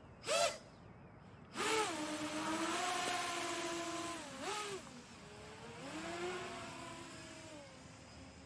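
FPV quadcopter's electric motors whining, the pitch rising and falling with the throttle: a short blip, then a sustained run from about a second and a half in with a quick surge partway, a drop, a second swell, and fading off near the end.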